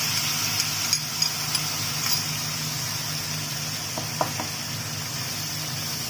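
Wet spice paste of ground coriander, ginger and cumin sizzling in hot mustard oil in a wok, stirred with a wooden spatula, with a few light spatula taps about four seconds in. A steady low hum runs underneath.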